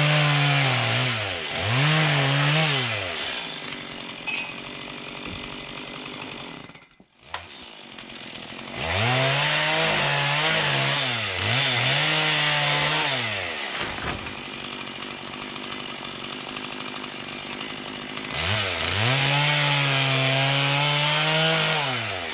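Stihl chainsaw revved to full throttle in about five bursts of one to three seconds, each rising, holding high and falling back to a lower idle in between.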